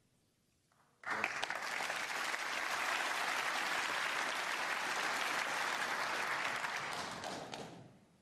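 Audience applauding: it starts suddenly about a second in, holds steady, and dies away near the end.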